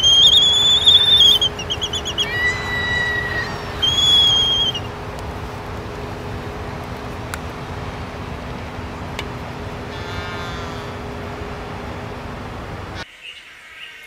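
Laysan albatrosses calling during their courtship dance: several loud high whistled calls in the first five seconds, then a short buzzy call about ten seconds in, over steady background noise.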